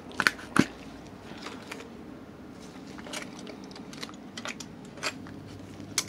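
Square plastic coin tube of silver rounds being pried open by gloved hands: two sharp plastic snaps in the first second, then scattered lighter clicks and creaks.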